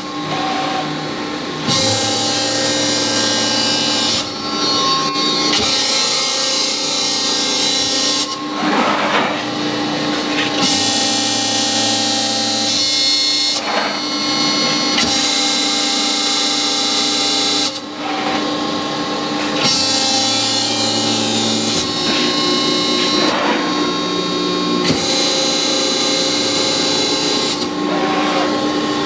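Cincinnati CNC hydraulic press brake running: a steady motor-and-pump hum under a high rushing noise that comes and goes in stretches of a few seconds.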